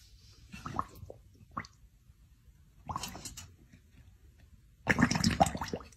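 Dog slurping and lapping water from a metal bowl in a few irregular wet bouts, the longest and loudest near the end.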